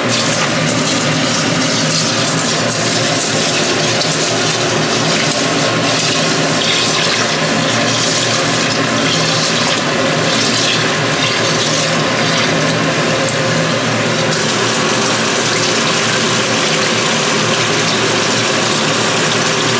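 Kitchen faucet running steadily into a stainless steel pot in a steel sink while long-grain rice is rinsed in it by hand.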